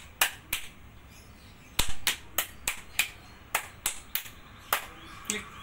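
Body percussion of an Indonesian scout clap routine: a rhythmic run of sharp hand claps, thigh slaps and finger snaps. Two strokes come, then a pause of about a second, then a steady run of about three strokes a second, the heaviest just before the second second.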